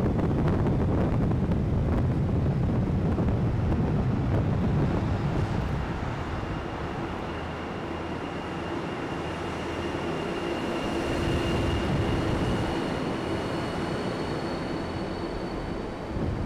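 A car driving slowly through a parking garage: a steady low rumble with wind on the microphone, easing off about six seconds in, when a faint steady high whine and a hum come in.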